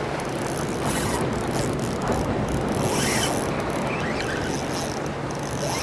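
Spinning reel being cranked, its gears and handle ticking steadily as a hooked fish is reeled in.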